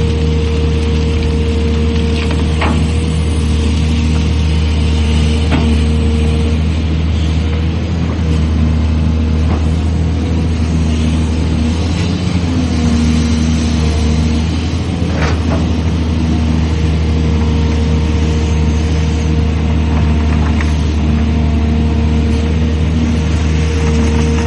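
Excavator's diesel engine running steadily under load, with a pitched hydraulic whine that comes and goes and a few sharp knocks.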